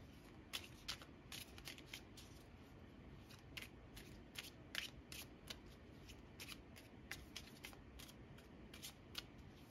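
A deck of tarot cards being shuffled by hand: faint, irregular card clicks and flicks, one or two a second.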